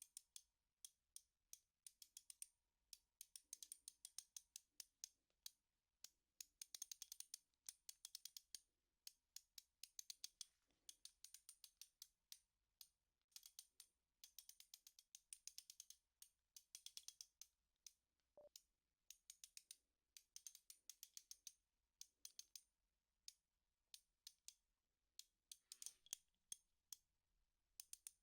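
Socket wrench ratchet clicking in quick runs with short pauses between them, faint.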